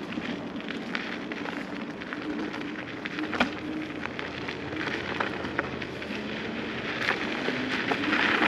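Dual-motor electric scooter riding over a dirt path, its tyres crackling and crunching with many small clicks over a faint steady hum. It grows louder near the end.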